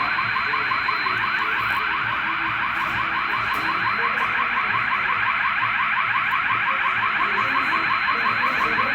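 Hotel fire alarm sounder going off: a continuous electronic tone that sweeps rapidly upward, several sweeps a second, at a steady level without pause.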